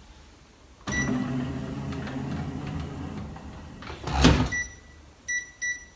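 Microwave oven running with a steady hum. Just after four seconds in there is a loud clunk of its door, followed by a few short high keypad beeps.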